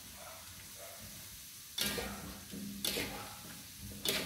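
Shrimp, squid and cauliflower stir-frying in a metal wok: a steady sizzle, with the metal spatula scraping and knocking against the wok three times, the first about two seconds in.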